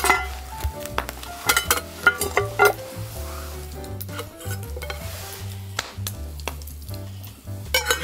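Metal clinks of an aluminium camp pot's lids being lifted and handled as the pot of steamed sticky rice steams over a wood fire. There is a faint sizzling hiss, and a cluster of sharp clinks comes in the first three seconds, over background music.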